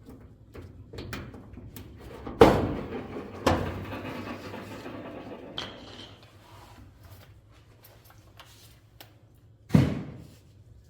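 Three sharp knocks, two close together and one near the end. The first two ring on for a couple of seconds, as from struck panels or parts. Light clicks, rubbing and a brief squeak from handling come in between.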